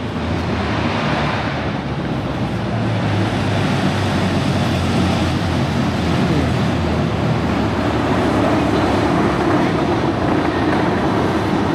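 Shanghai maglev train pulling slowly into the station alongside the platform, a steady noise that grows slightly louder as it arrives.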